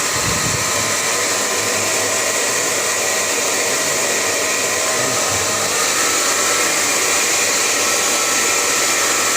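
Chaoba 2000-watt hair dryer running steadily on its middle speed setting: an even rush of air with a faint fan whine.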